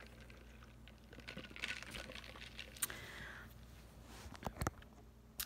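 Faint handling noise of a phone held in the hand: soft scattered clicks, taps and rustling, a few sharper clicks in the second half, over a low steady hum.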